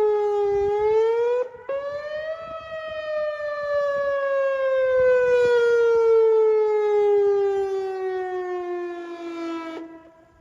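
Whelen WPS-2906 electronic outdoor warning siren sounding the end of its attack signal. The tone dips, rises again after a brief break about a second and a half in, then glides slowly down in pitch and cuts off near the end.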